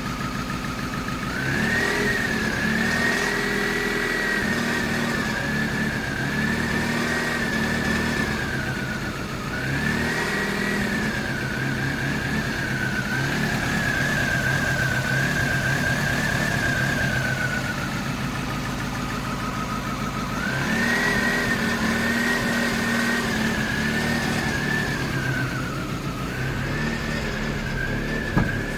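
1998 Mazda 323 engine idling roughly in Park, its speed surging up and slowly sagging again about four times rather than holding steady. The hunting, rough idle persists despite a cleaned throttle body, idle air control valve, MAF sensor and distributor cap. Two sharp clicks near the end.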